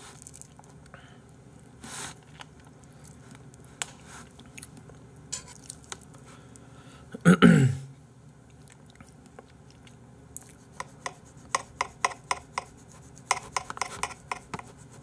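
Close-mic chewing of raw salmon: soft wet mouth clicks, sparse at first and quickening into a run of several clicks a second in the last few seconds. A short voice sound with falling pitch comes about seven seconds in.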